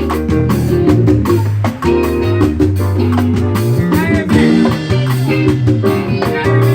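Live band playing an instrumental groove at soundcheck: electric bass, drum kit and percussion under guitar and keyboard chords, with a bending lead line about four seconds in.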